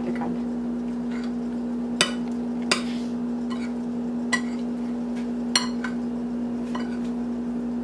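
Metal spoon clinking and scraping against a white bowl while mixing lentils with chopped tomato and chili, with a few sharp clinks spread through. A steady low hum runs underneath.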